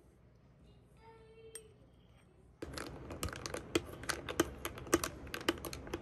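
Ice cubes clinking against a tall drinking glass as iced coffee is stirred with a straw. A rapid, irregular run of sharp clinks starts about two and a half seconds in.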